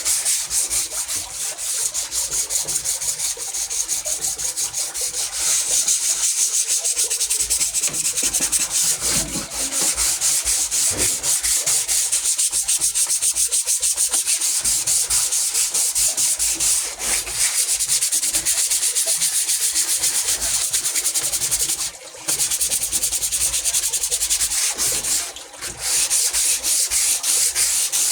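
Sandpaper rubbing on wood in rapid back-and-forth strokes, a steady scratchy rasp that stops briefly twice in the last third.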